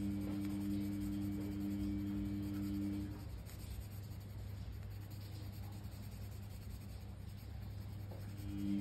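Pencil scratching back and forth on paper, shading in an area of a coloring-book page. Under it runs a steady low hum. Two low tones in the hum stop about three seconds in and come back near the end.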